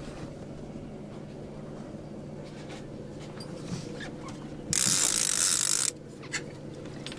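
Boat engine idling with a low, steady hum. About five seconds in, a loud hissing rush lasts a little over a second, with a few faint clicks around it.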